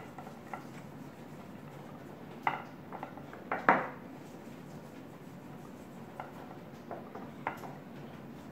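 Raw chicken drumsticks being turned over by hand on a serving platter: scattered light knocks and clatters against the plate, the two loudest about two and a half seconds in and a second later.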